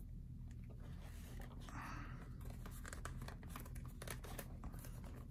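Leather lace being twisted and drawn through the lacing holes of a Rawlings baseball glove: faint rubbing, scratching and small clicks of leather on leather, with a longer rasp about two seconds in.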